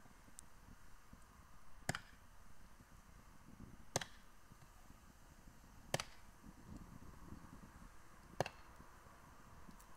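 Campfire burning bedsheets: four sharp pops about two seconds apart over a faint, uneven crackle.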